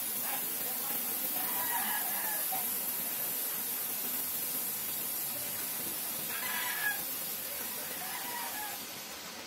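Homemade sugar-and-potassium-nitrate smoke grenade burning on the ground with a steady hiss that fades away near the end. Chickens call several times in the background.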